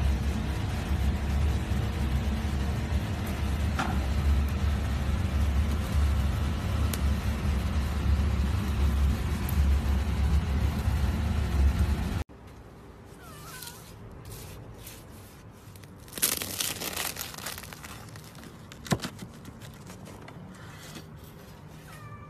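A steady low rumble with a faint hum that cuts off abruptly about twelve seconds in. Then quieter background sound with a brief rush of noise, a single sharp knock and a couple of faint short chirps.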